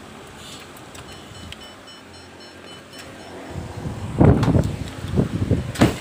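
Keyless push-start alarm unit beeping, a quick run of about seven short high beeps after the start button is pressed. Then loud bumps and rustling, ending in a sharp knock.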